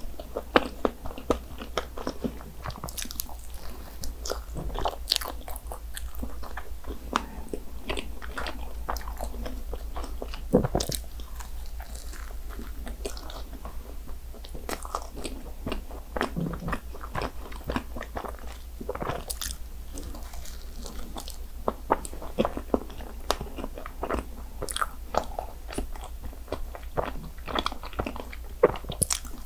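Close-miked biting and chewing of a pastry: wet mouth sounds packed with many small irregular crisp clicks and crunches.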